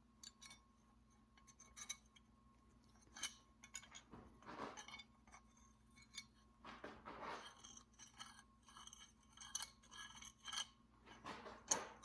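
Faint light metallic clinks and scrapes of two forged steel scissor halves being handled and held together, with a few longer scrapes among scattered small clicks.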